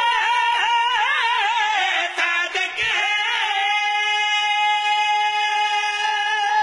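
Men's voices singing a line of a devotional qasida, without words: a wavering, ornamented melody that about three seconds in settles into one long held high note.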